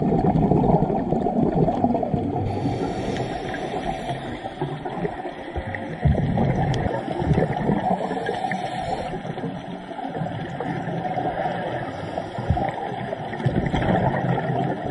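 Muffled underwater noise picked up by a submerged camera: a loud, steady rush of moving water with gurgling and a few sudden surges.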